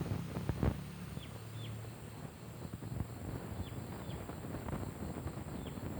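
Outdoor ambience with wind on the microphone and a low rumble that fades after the first second. A sharp knock comes less than a second in. Short high falling chirps, paired, repeat every second or two.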